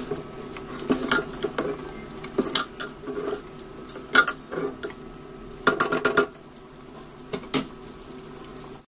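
Steel ladle stirring thick gravy in an aluminium pressure cooker, with irregular clinks and knocks of metal on metal against the pot, over a steady low hum.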